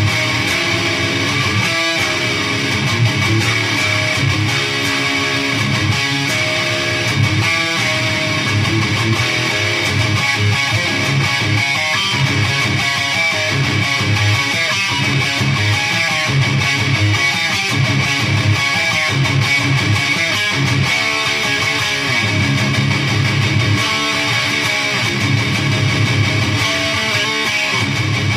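Electric guitar played without a break through a Peavey Triple XXX II tube amp head and two-speaker cabinet, a continuous riff at a steady loud level.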